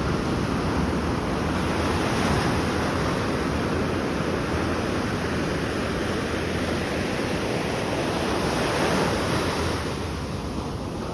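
Atlantic Ocean waves and surf rushing steadily, easing slightly near the end, with wind rumbling on the microphone.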